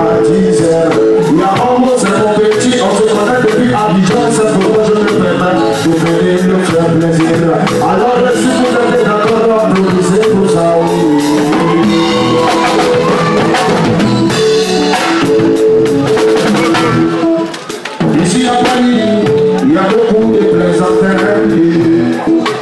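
Loud music with a drum beat and singing. The music dips briefly about three quarters of the way through.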